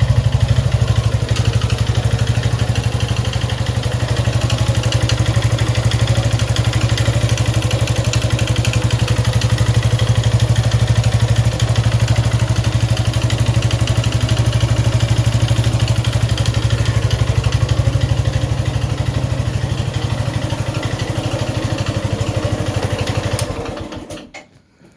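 Suzuki Gixxer 155's single-cylinder four-stroke engine idling steadily with a rapid mechanical ticking clatter, then switched off near the end. The noise is abnormal: the mechanic suspects the cam chain, excessive valve clearance, or a worn piston and rings after the owner neglected the oil.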